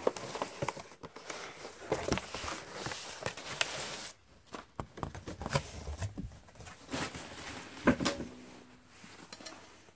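Rustling of packaging and paper for the first few seconds, then scattered clicks and knocks as the unboxed parts of the stand are handled, the sharpest knock near the end.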